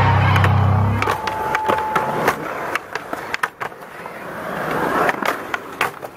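Skateboards on concrete: wheels rolling and a string of sharp clacks as boards are popped, slide on a metal handrail and land. Music stops about a second in.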